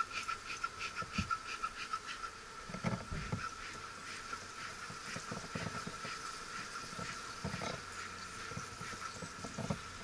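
Honeybees buzzing steadily around an opened hive, with a few dull wooden knocks as hive boxes and covers are handled and set down.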